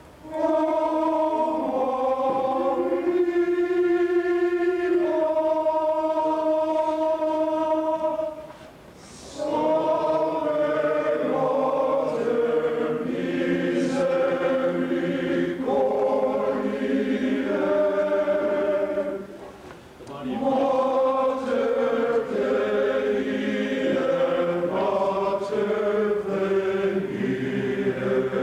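Men's choir singing in long held chords, in three phrases with short pauses for breath about nine and nineteen seconds in.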